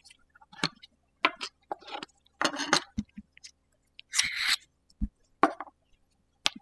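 Handling sounds of an e-bike hydraulic brake lever and its lever checking tool as the tool is pulled off and set aside: scattered light clicks and knocks, a short scraping sound about four seconds in, and a dull knock about a second later.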